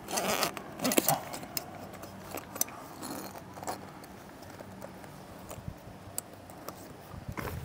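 Scattered metallic clinks and rattles of hardware being handled at a vehicle roof rack while an awning is mounted, with a brief rustling burst at the start and sharper clicks about a second in and just before the end.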